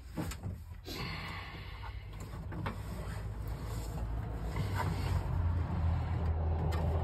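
A steady low machine hum that grows slowly louder, with a few light clicks of wires and metal being handled.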